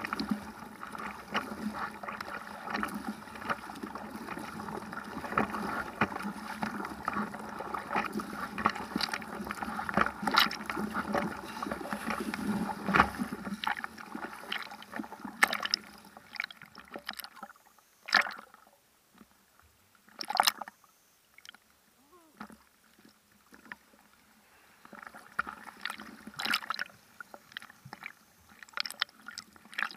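Seawater splashing and sloshing against a board-mounted action camera. It is a steady churning wash for the first half, then mostly quiet with a few separate splashes, and busier again near the end.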